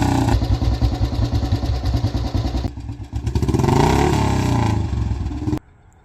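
Royal Enfield Bullet 350 single-cylinder engine revving, dropping back to a fast, even thumping idle, then revving up and down again before the sound cuts off abruptly near the end.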